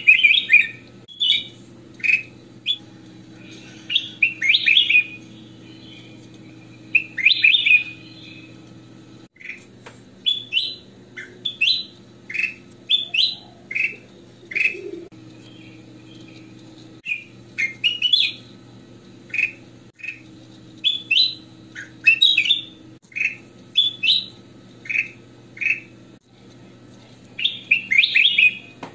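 Ruby-throated bulbul (kutilang emas) singing: short bursts of quick, clear whistled notes, repeated every second or so with brief pauses between them.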